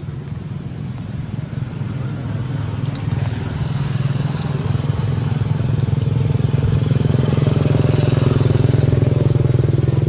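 Motor vehicle engine running steadily with a low hum. It grows louder over the first half, then holds.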